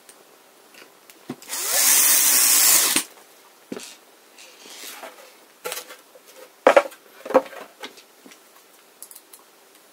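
Electric drill spinning up and running for about a second and a half, pre-drilling a pilot hole for a screw through a furniture flange into a wooden board, and stopping abruptly. Afterwards come scattered light clicks and taps as the tool is set down and small screws are handled.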